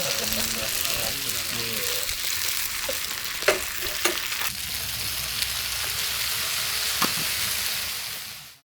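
Food sizzling steadily in a hot pan, with a few sharp taps of a cooking utensil. The sizzle fades out near the end.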